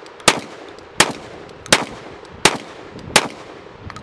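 Beretta A300 Ultima Patrol 12-gauge semi-automatic shotgun fired rapidly, five shots evenly spaced about three-quarters of a second apart, each with a short ringing echo.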